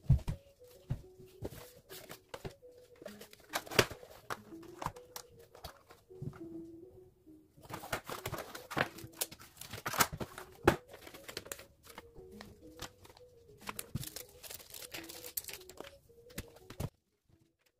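Hands handling a laptop and a loose laptop battery on a wooden table: clicks and knocks of plastic against wood, with two stretches of crinkling packaging. It stops abruptly near the end.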